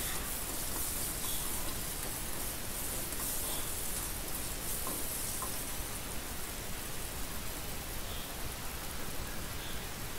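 Dried red chillies frying in hot oil: a steady, soft sizzle with a few faint crackles.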